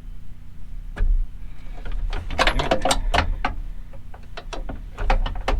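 Socket ratchet clicking in quick runs, with metal knocks and clinks of the socket and extension against the latch.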